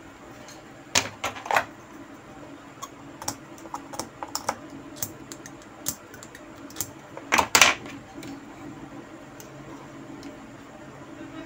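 Irregular light clicks of multimeter probe tips tapping and scraping on the pins of a removed relay while the plastic relay is handled on the bench, with two louder clusters about a second in and about seven and a half seconds in. It is a continuity check of the relay's contacts; the meter gives no beep, reading open circuit.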